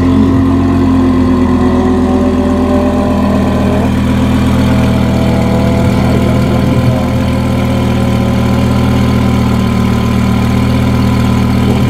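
Twin-turbocharged Lamborghini Huracán's V10 idling steadily through its custom titanium exhaust.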